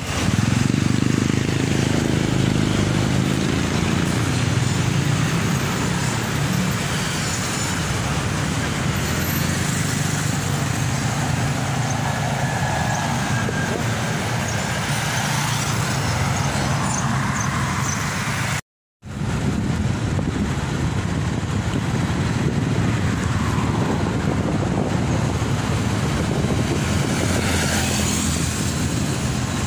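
Street traffic: motorcycles, cars and trucks passing, a steady mix of engine and tyre noise that is heaviest in the first few seconds. The sound cuts out completely for a moment about two-thirds of the way through.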